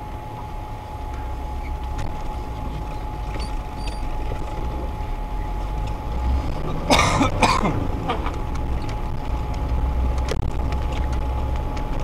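Off-road 4x4 driving along a rutted snowy forest track, heard from inside the cab: a steady low engine drone with a faint steady whine. About seven seconds in, a short loud burst of noise stands out above it.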